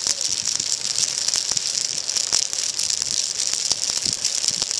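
Real evergreen Christmas wreath burning fiercely in an open fire, its needles crackling in a dense, steady hiss with many sharp pops.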